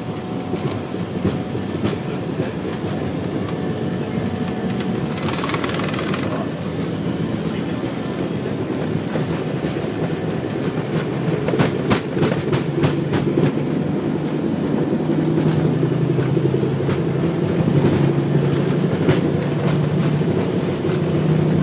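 Jet airliner rolling down the runway, heard from inside the cockpit: a steady rumble of wheels and engines that builds louder, with a run of rapid thumps from the wheels over the runway about halfway through, as on the takeoff roll. A brief hiss sounds about five seconds in.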